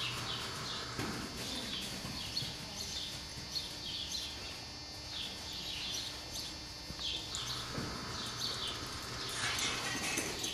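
Small birds chirping over and over, with the soft footfalls of a horse walking in deep arena dirt.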